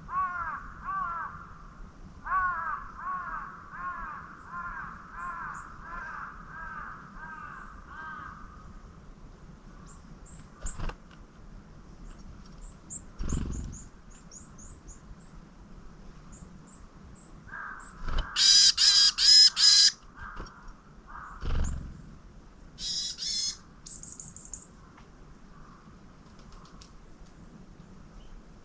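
A crow cawing, a run of about a dozen harsh caws in the first eight seconds, with small birds chirping faintly and high in between. Later, a loud harsh rattling burst lasts about two seconds and is the loudest sound here, followed by a shorter one.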